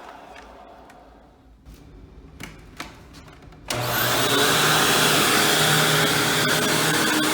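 Hoover WindTunnel Supreme upright vacuum cleaner: the last of its motor fades away, there are a few clicks and knocks of handling, and then the vacuum is switched on about halfway through and runs steadily and loudly.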